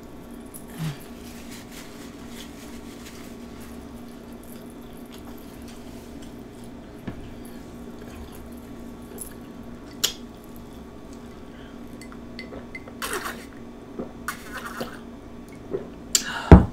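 Close-miked chewing of a soft waffle-bun turkey cheeseburger: soft wet mouth sounds and small clicks over a steady low hum. Near the end a drinking glass is handled on the table, ending in a sharp knock with a deep thud, the loudest sound.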